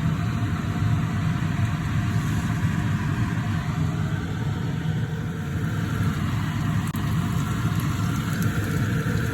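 Steady low rumbling hum with a faint hiss above it, unchanging throughout: the constant background noise of a kitchen, such as a running fan or burner.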